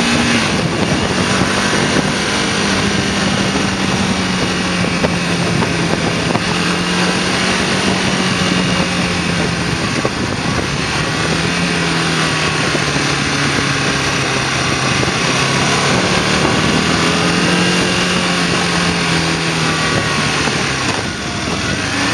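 Motorcycle engine running under way, heard from the rider's seat with wind rushing over the microphone. The engine note drops as the bike slows about ten seconds in, picks up again, and falls once more near the end.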